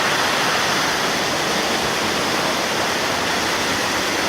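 Large waterfall: falling water making a steady, even rushing noise.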